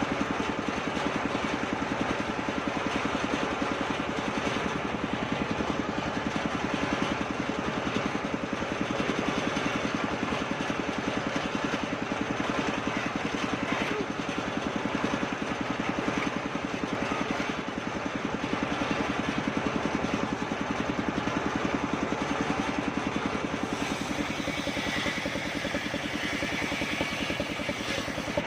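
Engine of a home-built circular saw rig running steadily with a fast, even chug; about three-quarters of the way through, a higher whine rises in over it.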